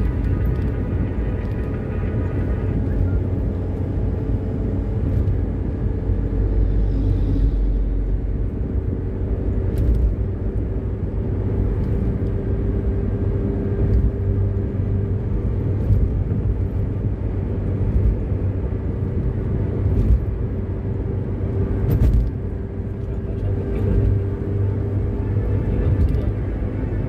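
Car cabin noise while cruising at highway speed: a steady low rumble of engine and tyres on the road with a faint steady hum, broken by a few short sharp clicks.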